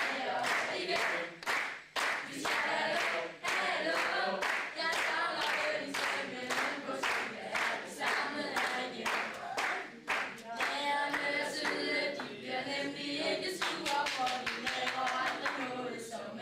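Mixed choir of young male and female voices singing together, with hand-clapping in time at about two claps a second that comes quicker in the second half.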